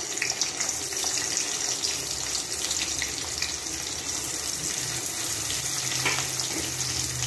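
Sliced onions sizzling and crackling in hot oil in an aluminium kadai, with a few scrapes and taps of a spoon as they are stirred.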